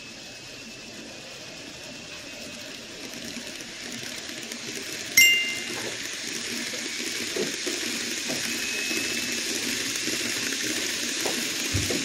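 N gauge model container freight train running on the layout track, its wheel and motor noise growing louder as it comes close and passes by. A sharp metallic ding about five seconds in.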